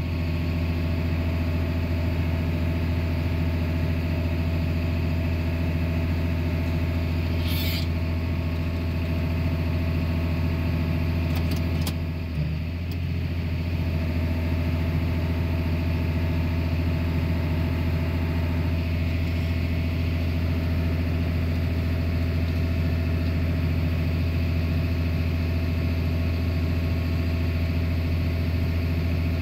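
Tractor engine running steadily at a constant speed, heard from inside the cab, with two brief clicks partway through.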